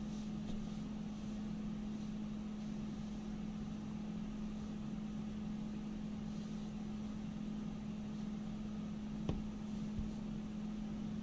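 Steady low electrical or machine hum, with a single sharp click about nine seconds in.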